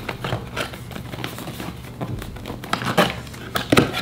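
Cardboard lens box being handled and opened by hand: irregular scrapes, rubs and crinkles as the box slides out of its sleeve and its flap is pulled open.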